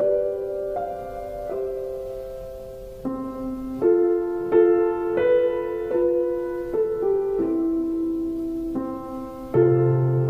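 Slow, quiet orchestral film-score music: soft held chords that shift every second or so, with a deep bass note coming in near the end.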